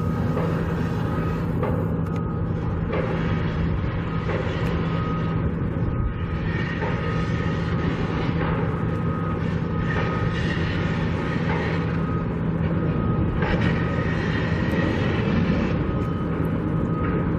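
A steady mechanical rumble with a constant low hum, continuing without a break.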